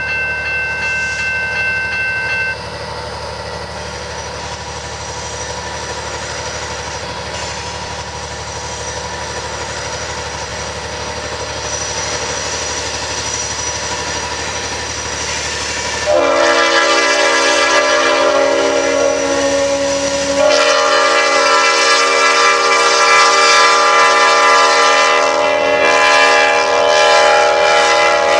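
EMD GP59 diesel locomotive approaching with its engine working. About sixteen seconds in its air horn sounds a loud multi-note chord. The chord breaks and changes about four seconds later into a second long blast that runs on, the warning for a grade crossing. Early on, a steady high tone cuts off about two and a half seconds in.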